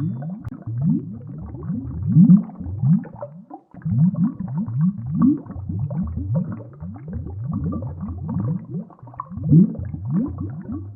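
Added sound effect: a steady stream of short, low, rising glides, several a second, with a brief break a little past three seconds in.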